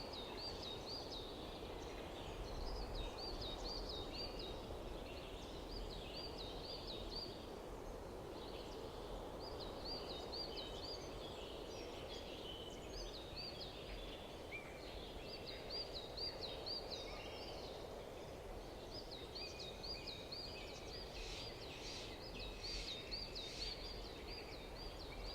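Birds chirping outdoors over a faint steady background hiss, with runs of quick, high, rising chirps repeating throughout.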